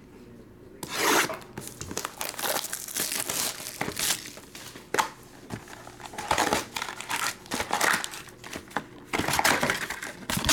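Plastic wrap torn off a trading-card hobby box, then its foil card packs lifted out and handled: a run of irregular crinkling and tearing starting about a second in.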